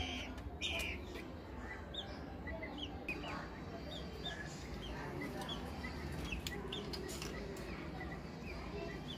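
Guinea fowl chirping: many short, high, downward-sliding calls, one after another in an uneven run, with a few sharp knocks mixed in.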